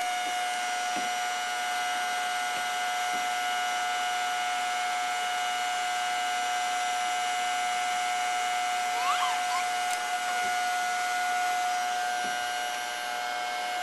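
Vacuum cleaner running, its motor giving a steady, even whine. A brief rising squeal comes about nine seconds in.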